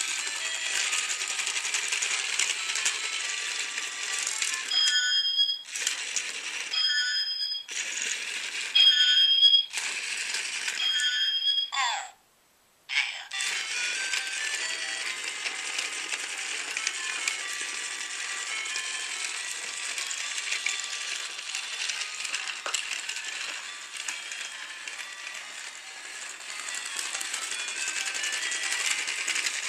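Battery-powered Trackmaster Talking Thomas toy engine running along plastic track, its motor and gearbox giving a steady whirring rattle. From about five to twelve seconds in the running breaks into a string of short high tones with short pauses between them, ending in a brief falling tone, and the sound drops out for about a second just after.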